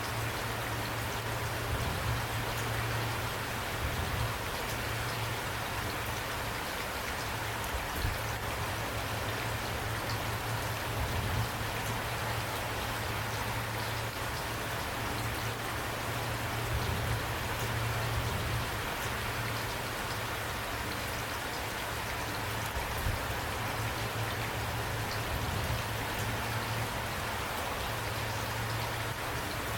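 Steady rain falling, drops pattering on a surface in an even, unbroken hiss with scattered individual drop ticks, over a steady low hum.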